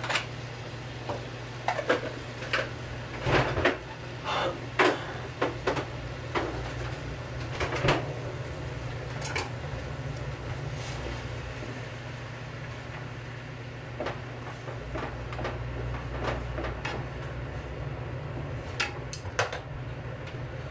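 Pan of noodles cooking on a lit gas burner: a steady low hum with scattered light clicks and knocks, most of them in the first eight seconds and again near the end.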